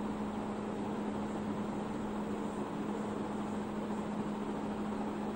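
Steady room noise: a constant low hum over an even hiss, with no change in pitch or level.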